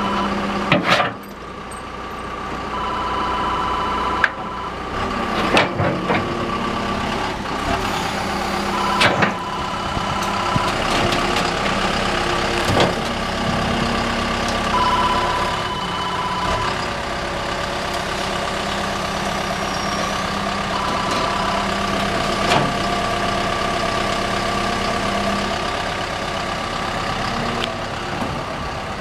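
John Deere 160D LC excavator's diesel engine running steadily while the boom and bucket are worked, with a higher hydraulic whine that comes and goes for a second or two at a time and several sharp clunks from the arm and bucket.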